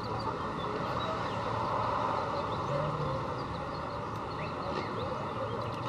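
Distant sports-car engines running under a steady outdoor hum of crowd and traffic, with faint scattered chirps.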